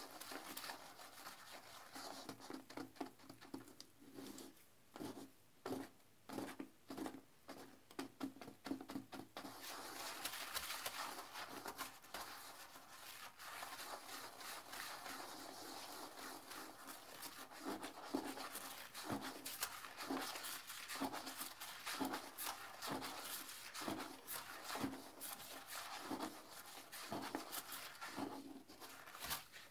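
Toilet brush scrubbing and swishing through a bowl of sudsy cleaner water: quick, repeated strokes of bristles against porcelain and water. About four to nine seconds in the strokes come separately, then they run together into dense, continuous scrubbing.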